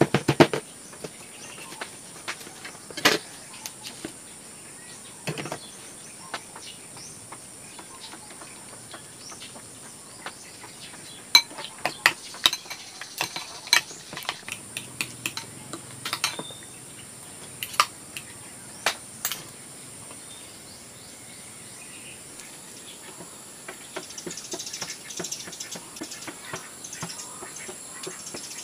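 Kitchen utensils clinking and tapping against a pan and dishes in scattered sharp clicks, busiest about halfway through, over a faint steady high hiss.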